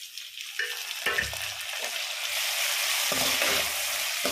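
Chopped tomatoes and green chillies sizzling as they hit hot oil in a kadhai of frying onions and capsicum, stirred with a metal slotted spoon. The sizzle grows louder after about two seconds.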